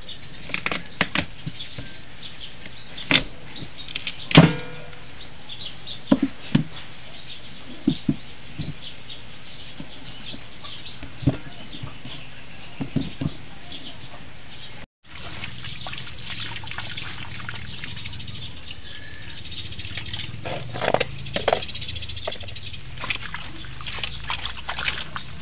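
Knife cutting through a large raw ube (yam) on a wooden chopping board: irregular sharp knocks a second or more apart. After a break about fifteen seconds in, hands washing the peeled yam pieces in a metal basin of water, with splashing.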